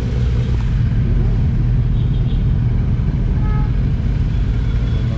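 Royal Enfield Interceptor 650's parallel-twin engine running at a steady cruise with other motorcycles close ahead, heard from the rider's seat as a steady low rumble.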